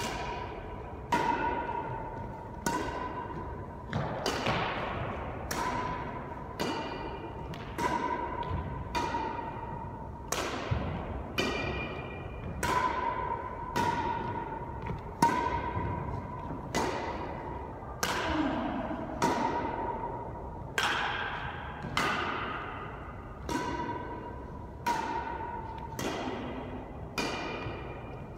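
Badminton rally: rackets striking a shuttlecock back and forth, about one hit every second and a half. Each stroke is a sharp string ping that rings on briefly and echoes off the bare walls of an enclosed court.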